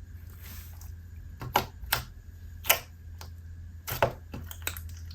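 Slime being pressed and stretched by hand, giving a string of sharp pops and clicks, a few of them loud, at uneven intervals.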